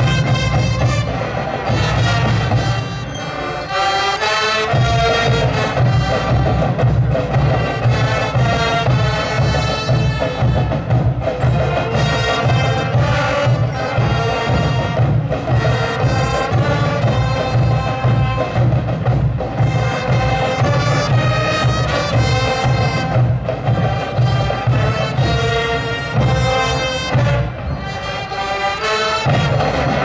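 A school marching band of brass and drums playing: sustained brass chords over a steady, pulsing drum beat. The low drum beat drops out briefly about four seconds in and again near the end.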